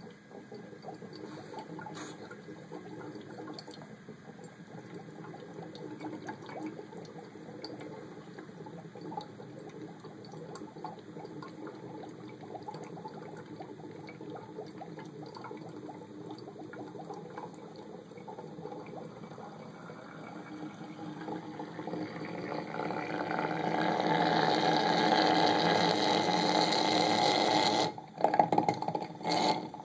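Water boiling in a corked Pyrex beaker over a propane Bunsen burner, a crackling, bubbling noise that grows much louder about two-thirds of the way through. It cuts off suddenly near the end, followed by a few sharp knocks.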